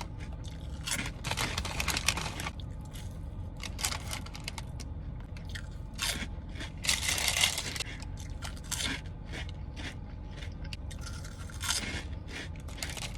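A person chewing a mouthful of steak and cheese sandwich close to the microphone: irregular crunching and wet crackles, with busier stretches of chewing about a second in, around the middle and near the end.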